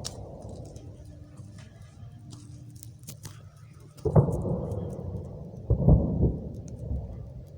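Distant explosions: two heavy booms about a second and a half apart, each followed by a rolling rumble that dies away over a second or two.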